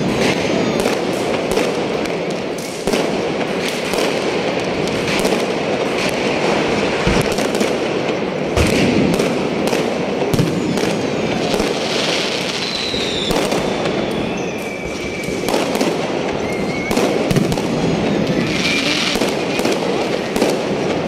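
Many fireworks and firecrackers going off at once: a dense, continuous crackle of bangs and aerial shells bursting overhead, with a few short whistles in the middle.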